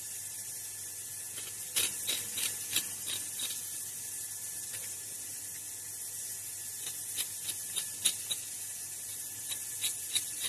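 Knife cutting a vegetable held in the hand: irregular short clicks and scrapes of the blade, clustered about two seconds in and again in the second half, over a steady high hiss.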